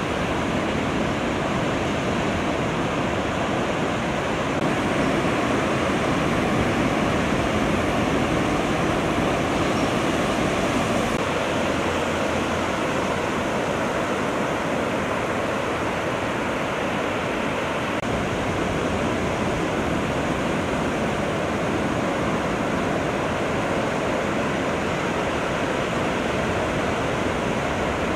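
Steady, even rush of breaking ocean surf.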